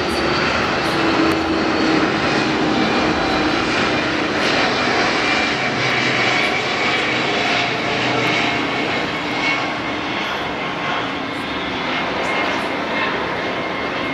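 Airbus A310-325 airliner's twin Pratt & Whitney turbofans passing low overhead on final approach with gear down: a steady, loud rushing jet noise with faint whining tones that drift slightly lower in pitch, easing a little near the end as the aircraft moves away.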